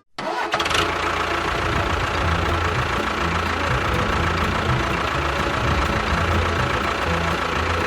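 Small motor of a DIY mini tractor running steadily, with a wavering low hum and a steady high whine over it.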